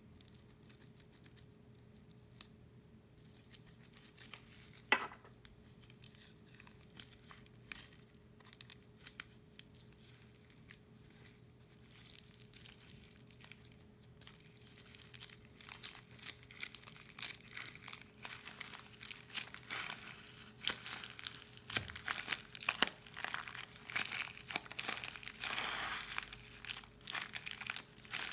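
Plastic piping bag crinkling and crackling as it is squeezed, pressing foam beads out onto slime. Sparse faint clicks at first, building from about halfway into dense, busier crackling.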